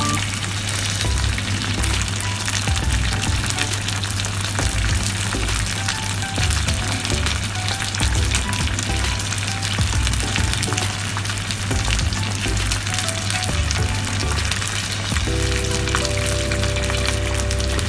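Pieces of boneless chicken thigh frying in hot oil: a steady sizzle with dense crackling. Background music with held notes comes in near the end.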